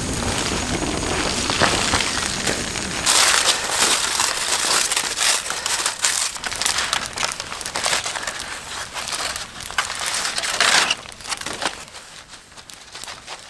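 Aluminium foil crinkling and crumpling as a foil packet is pulled open by hand, stopping about eleven seconds in.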